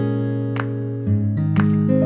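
Background music of acoustic guitar strumming chords, the chord changing about a second in.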